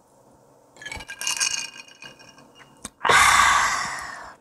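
A loud, harsh breath out after a swallow of whisky, starting suddenly about three seconds in and fading over about a second. It follows a softer scraping sound about a second in.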